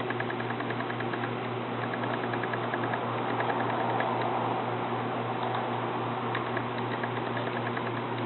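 Steady low electrical hum over background hiss, with a faint rapid ticking in the first few seconds.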